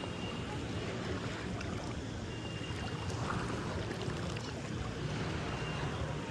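Steady wind and sea-water noise at the shoreline, with wind rumbling on the microphone.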